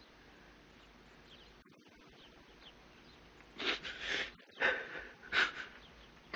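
A man sobbing and sniffling with his face in his hands: near quiet at first, then several loud, breathy sobs a little past halfway.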